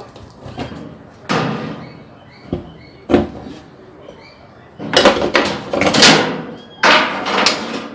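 Knocks and clattering from parts and tools being handled on a workbench: a knock about a second in, two short knocks a little later, then two longer runs of clatter in the second half.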